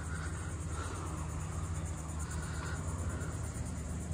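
Steady outdoor background noise: a low rumble with a faint high buzz, like insects, over it.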